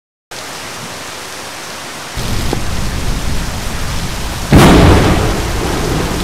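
Stormy weather: a steady hiss of rain, joined about two seconds in by a deeper rumble, and a loud crash of thunder about four and a half seconds in that slowly fades.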